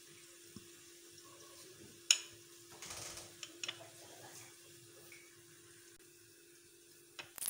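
Quiet handling of dough and a wooden rolling pin on a marble worktop: one sharp knock about two seconds in, then a short rustle and a few small clicks over a steady low hum. Just before the end the rolling pin starts moving on the stone.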